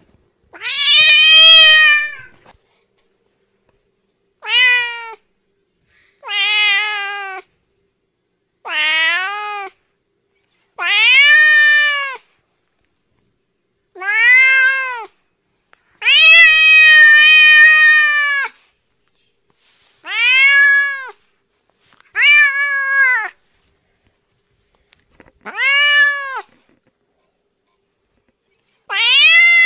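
A domestic cat meowing over and over: about eleven drawn-out meows, each a second or two long and rising then falling in pitch, with silence between them. The longest comes about two-thirds of the way through.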